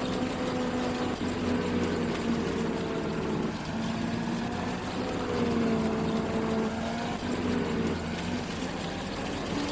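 Combine harvester running steadily, its engine hum wavering slightly in pitch.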